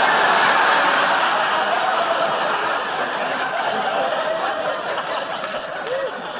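Sitcom studio audience laughing. The laughter breaks out all at once, is loudest at the start and slowly dies away.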